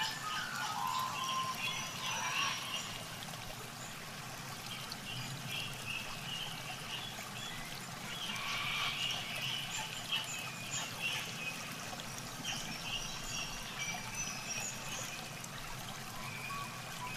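Shallow muddy water sloshing and trickling as hands grope and dig through it while hand-fishing. Short high-pitched chirps come and go over it.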